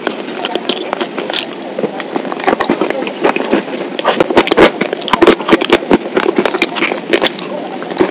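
Close-miked eating sounds: wet lip smacks, sucking and sticky mouth clicks as a thick paste is licked off the fingers. The clicks come thicker and louder from about halfway through.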